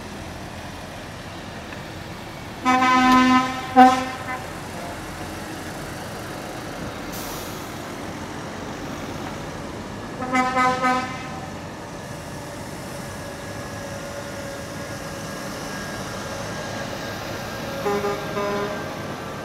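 Truck horns sounding three times: a blast of about a second near the start, a shorter one midway, and a higher-pitched one near the end, all over the steady running of truck engines. A short hiss comes about seven seconds in.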